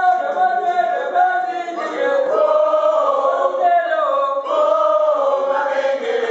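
A group of men and women singing together in unison, unaccompanied, in long held notes that step to a new pitch every second or so.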